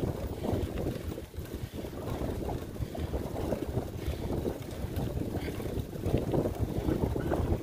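Wind buffeting the microphone of a moving rider, an uneven low rumble.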